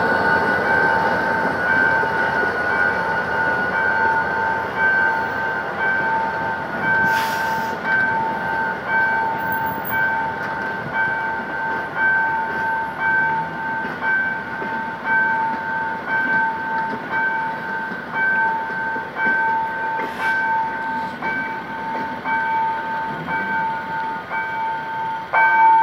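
Loaded passenger coaches hauled by a GM GT-22CW-2 diesel locomotive rolling past at close range on jointed track. Over it runs a steady, evenly pulsing warning tone from the level-crossing signal. There are two brief sharp noises, about seven and twenty seconds in, and a louder jolt just before the end.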